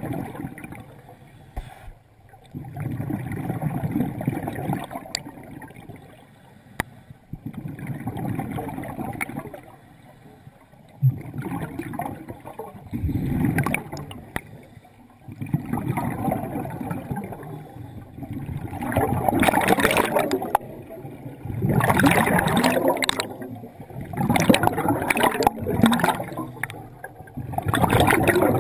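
Scuba diver breathing through a regulator underwater: bursts of exhaled bubbles rumbling and gurgling about every three seconds, louder and fuller in the second half.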